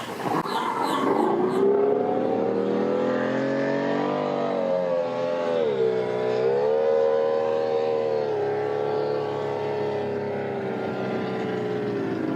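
An engine comes in about a second in and runs at changing speed. Its pitch rises, dips briefly around six seconds in, picks up again, and then settles into a steady run.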